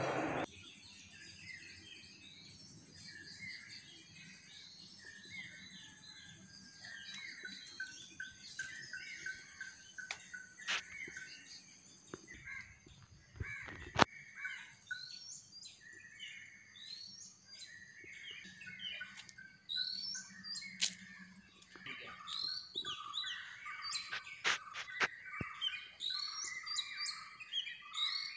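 Many small birds chirping and calling in a dawn chorus, getting busier in the second half, over a thin steady high whine. A single sharp click about fourteen seconds in is the loudest sound.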